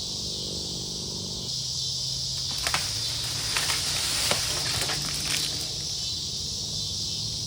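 Steady high-pitched chorus of insects, crickets or similar, running throughout, with a low steady hum beneath. A cluster of short rustles and clicks comes in the middle.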